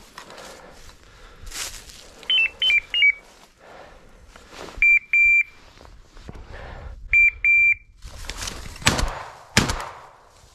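Hunting dog's electronic beeper collar sounding short high beeps: a quick falling run of beeps, then two pairs a couple of seconds apart, over footsteps rustling through undergrowth. Near the end come two sharp cracks about two-thirds of a second apart.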